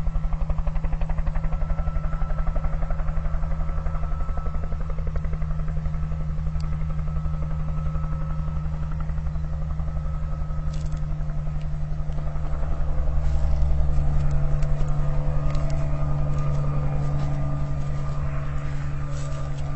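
An engine running steadily with a rapid, even throb, growing somewhat louder about two-thirds of the way through.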